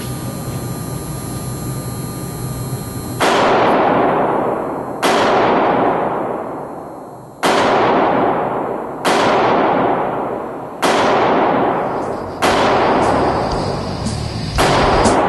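A series of loud, sharp bangs about every two seconds, each ringing out for over a second, starting about three seconds in after a steady hum. The stills show only a knife being worked into the fabric, not shooting, so these are bangs on the soundtrack rather than the cutting itself.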